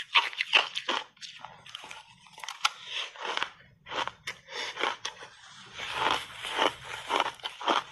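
Close-miked crunching and chewing of a mouthful of crunchy shaved ice, an irregular run of sharp crisp crunches.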